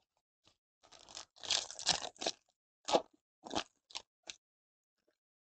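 Foil wrapper of a Bowman Chrome trading-card pack being torn open and crinkled by hand, heard as a run of short crackly bursts starting about a second in and dying away before the end.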